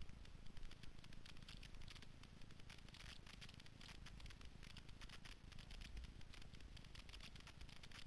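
Faint sound of a snowboard sliding and scraping over chopped-up snow, picked up by a helmet-mounted GoPro, with a low rumble and many small irregular clicks and rattles.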